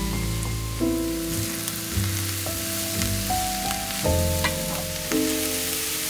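Diced eggplant and onion frying in a frying pan: a steady sizzle, with a few light clicks and scrapes of the wooden spatula stirring. Background music with a slow stepped bass line plays under it.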